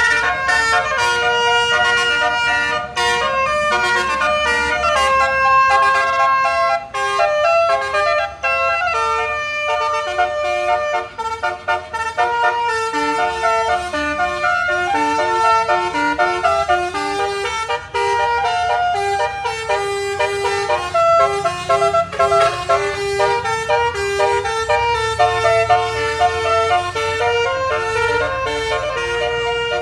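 Truck's basuri musical air horn playing a tune: a long run of held notes stepping up and down in pitch, with a low rumble underneath.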